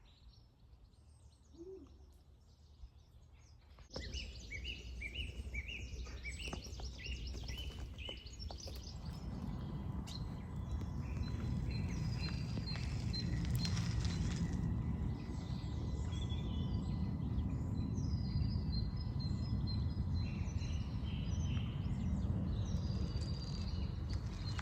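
Outdoor ambience: small birds chirping in quick repeated runs, starting about four seconds in, over a low rumbling noise that builds from about nine seconds in.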